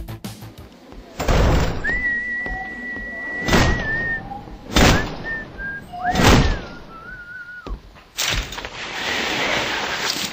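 A series of heavy thuds, about five over seven seconds, with someone whistling two long high notes between them; the second note slides downward. A rushing noise follows the last thud near the end.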